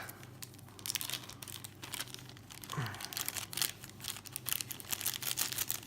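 Packaging crinkling and rustling in hands, a run of irregular small crackles, as earbuds are worked out of their box.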